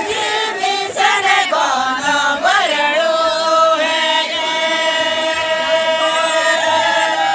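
A group of voices singing a traditional Santali dance song in chorus; about three seconds in they settle on one long held note.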